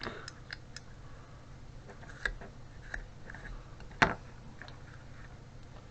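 Small plastic clicks and taps from an electric window switch unit being handled and turned over, with one sharper click about four seconds in, over a steady low background hum.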